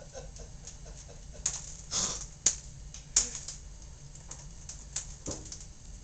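African grey parrot in its wire cage making scattered sharp clicks and taps, the two loudest close together near the middle.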